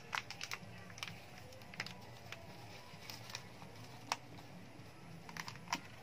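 Irregular light clicks and crackles from hands in disposable plastic gloves handling plastic plant pots and scooping loose potting medium, about a dozen sharp ticks scattered unevenly.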